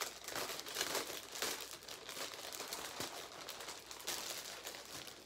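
Clear plastic packaging sleeve crinkling and crackling as it is handled and opened around a folded t-shirt and its cardboard backing, a continuous run of crackles.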